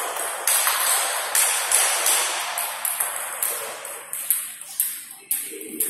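Table tennis rally: a plastic ball clicking sharply off rackets and table, the clicks ringing in a large hall. The clicks come several in a row in the first half, then after a short lull a few more ball bounces come near the end.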